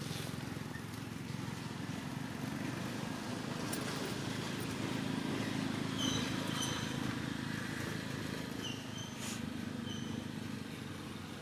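Steady low hum of a motor vehicle's engine running, growing a little louder toward the middle and easing near the end, with a few short high chirps over it.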